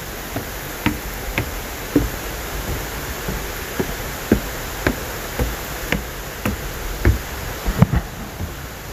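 Footsteps, about two a second, each landing as a short knock, over a steady rush of falling water from the nearby falls.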